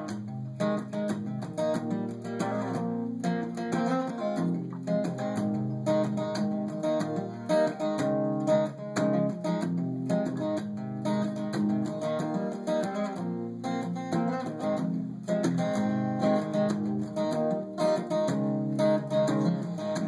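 Acoustic guitar with a capo, played solo as a picked and strummed instrumental introduction in a steady rhythm.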